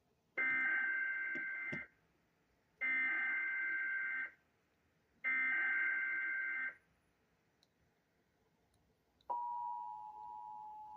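Emergency Alert System header: three bursts of SAME digital data tones, each about a second and a half long, then a couple of seconds later a steady two-tone attention signal starts. It is the alert that leads into a severe thunderstorm warning.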